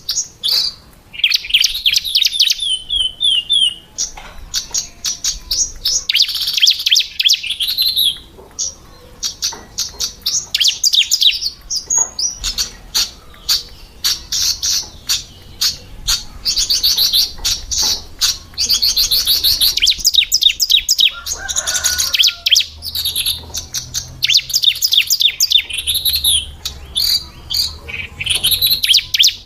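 Female bar-winged prinia (ciblek) chirping: quick runs of high, rapidly repeated notes, one run after another with short breaks between them.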